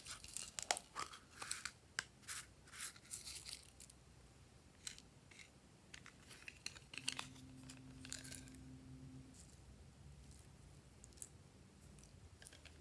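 Glossy slime being squished and stretched by hand, giving off quick sticky clicks and pops. They come thick for the first few seconds, then more sparsely, with a short flurry near the middle.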